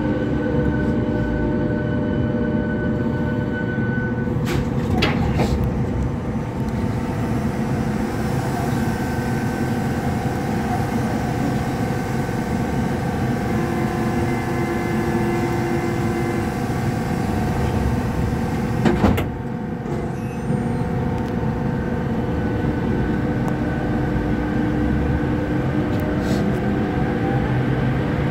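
Lille VAL rubber-tyred automated metro train running through a tunnel: a steady rumble from the running gear under several electric whining tones, some gliding in pitch near the start and the end. A sharp knock about 19 seconds in.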